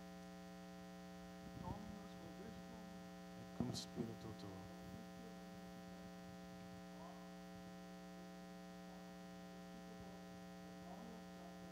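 Steady electrical mains hum from the sound system, with a man's voice faint and distant, away from the microphone, speaking a few words now and then: a priest's blessing in Latin.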